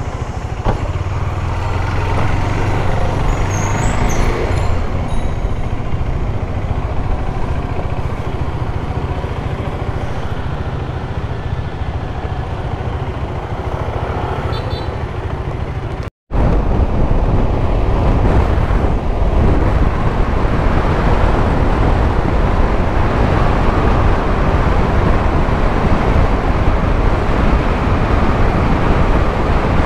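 Motorcycle riding sounds from a KTM 390 Adventure: its single-cylinder engine running steadily at low speed, with other traffic around. After a sudden break a little past halfway, a steady loud rush of wind and road noise takes over.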